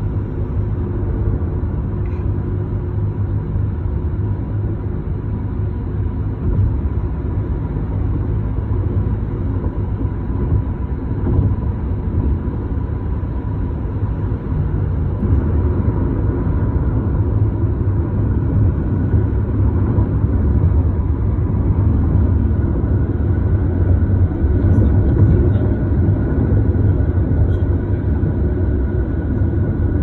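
Steady low rumble of tyre and engine noise heard from inside a moving car's cabin, getting slightly louder in the second half.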